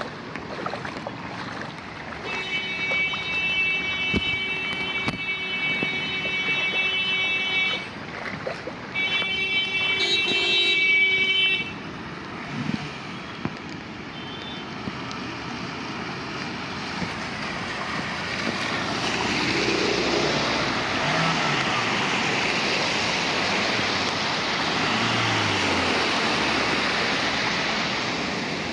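Floodwater washing across a road, with wind on the microphone. A steady high-pitched tone sounds twice, for about five seconds and then about three, and is the loudest thing heard. In the second half the rush of water grows louder.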